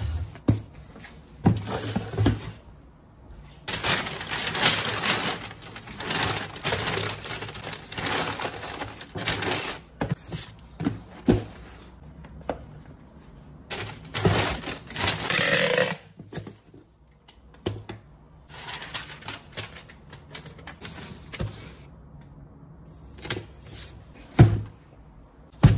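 Packing paper crinkling and rustling in long stretches while shoes are wrapped and packed into a cardboard shipping box, with scattered clicks, knocks and thumps from handling the box and its contents.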